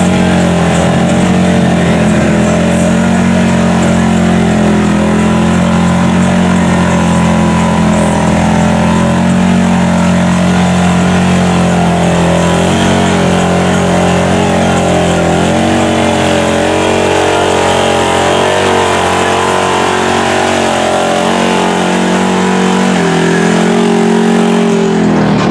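Engine of a lifted side-by-side UTV on giant tractor tyres running steadily as it wades through deep water, holding an even pitch with small shifts in speed about two-thirds of the way through and again near the end.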